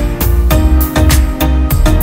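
Background music with a steady beat and heavy bass.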